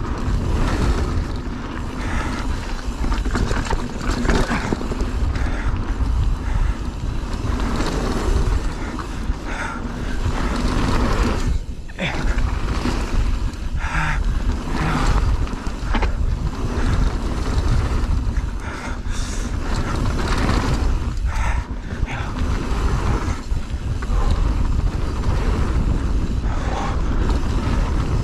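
Mountain bike ridden fast down a rough enduro trail over roots and rocks: tyres on the ground and the bike rattling and knocking over bumps, with a constant rumble of wind on the microphone.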